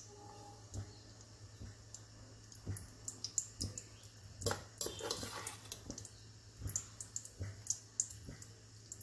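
Ghee melting in a hot nonstick kadai, giving faint scattered crackles and clicks over a low steady hum. A steel spoon stirs it near the end.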